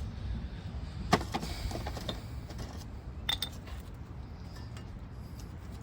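A few sharp metal clicks and clinks, the loudest about a second in and another just past three seconds, as new rear brake pads are fitted into the caliper bracket, over a low steady rumble.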